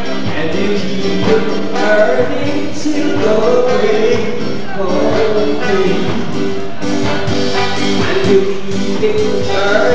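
Live band music playing loud and steady.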